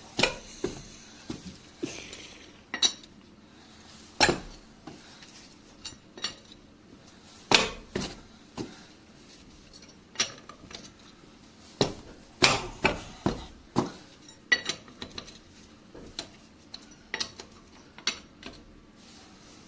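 Irregular sharp metallic clanks and clinks, a couple of dozen, some loud: a steel L-shaped lug wrench and wheel bolts knocking and being handled as a car wheel is unbolted.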